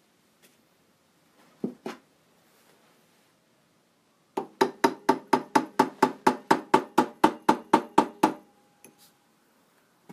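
Small hammer tapping silver wire down into the grooves of a rosewood bead piece: a fast, even run of about twenty ringing metallic taps, about five a second, starting about four seconds in. Two single knocks come earlier.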